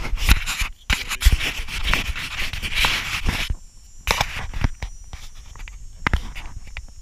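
Irregular knocks and scraping rubs close to an action camera's microphone, handling noise against the housing or mount, heaviest in the first half and then thinning to scattered ticks.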